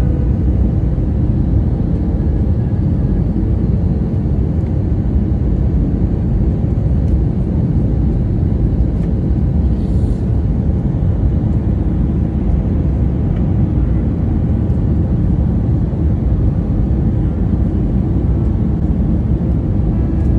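Steady low rumble of an airliner's jet engines and airflow heard inside the passenger cabin.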